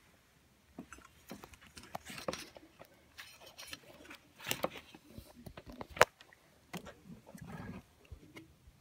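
Handling noise from a camera being moved about by hand: scattered small clicks, knocks and brief rustles as it bumps and rubs against things on a desk.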